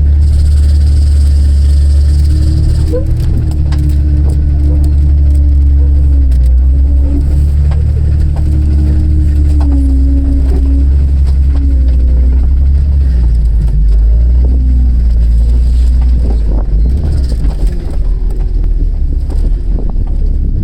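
Car engine idling with a steady, loud low drone and scattered light ticks, free of any piston-slap knock.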